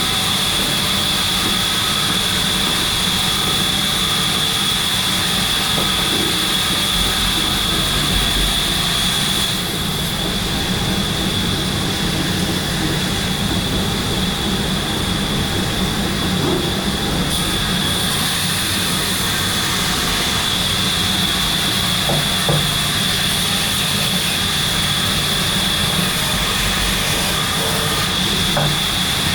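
Steady machinery noise in a workshop, running without a break, with a constant high whine over a low hum.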